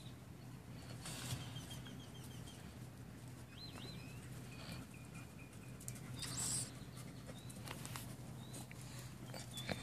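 Faint outdoor ambience: small birds chirping in short high notes and a brief up-and-down call, over a steady low hum. Light scuffs and clicks of a puppy's paws on dry dirt.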